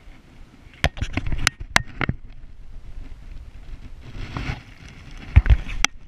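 Splashing and dripping water as a brown trout is let go from the hand into shallow water: a quick run of sharp splashes early on, a swish of water about four seconds in, then a couple of dull thumps of handling noise near the end.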